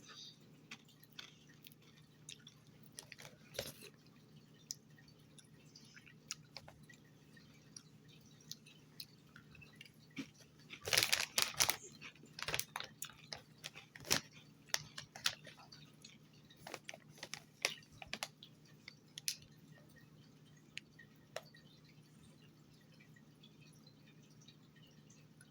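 A person chewing crunchy corn tortilla chips with salsa. Scattered crunches, with a louder flurry about eleven seconds in, then occasional crunches that thin out toward the end.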